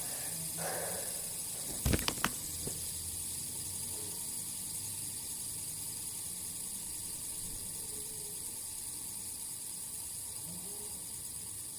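Steady hiss that fades slowly, with a quick cluster of sharp clicks about two seconds in.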